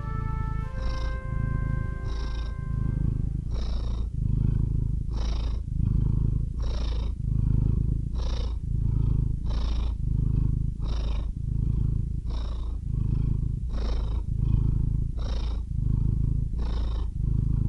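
Cat purring steadily in an even rhythm, about one breath cycle every second and a half. The last notes of brass music die away about a second in.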